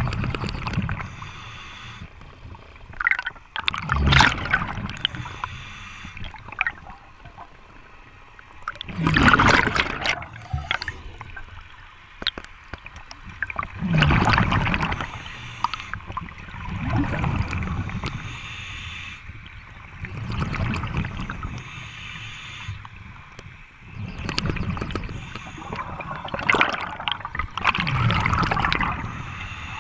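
Scuba regulator breathing heard underwater: exhaled bubbles gurgle out in surges every four to five seconds, with fainter regulator hiss on the inhalations in between.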